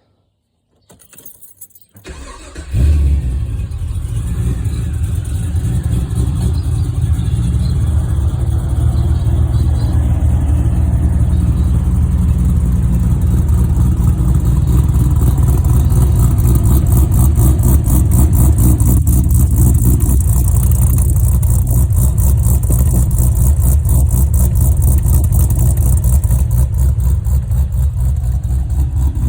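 Holden VX Commodore Berlina's LS1 V8, fitted with a Crow cam, starting about two and a half seconds in with a loud flare, then idling with a steady pulsing note.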